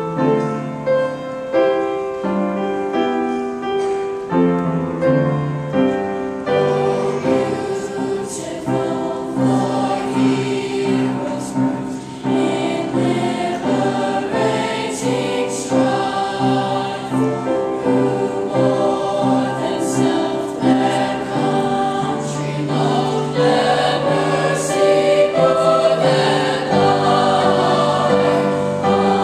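Middle-school mixed choir singing in sustained, held notes, the sound growing fuller about six seconds in.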